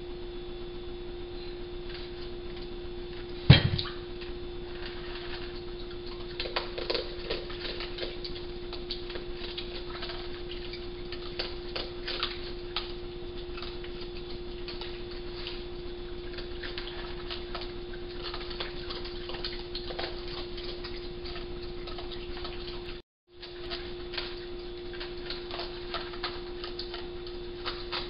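Raccoons eating dry cat food at a feeding table: irregular crunching of kibble and small clicks and taps against the bowls and feeders over a steady hum, with one sharp knock about three and a half seconds in and a brief dropout to silence near the end.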